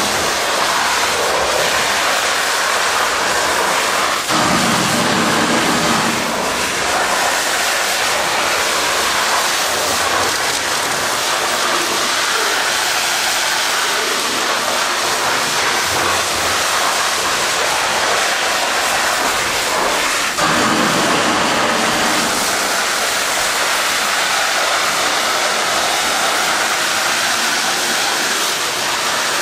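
Water jet from an Akron severe-duty monitor rushing steadily as it blasts a crawler dozer's tracks and blade, spray spattering off the steel and the concrete. A deeper rush swells briefly about four seconds in and again about twenty seconds in.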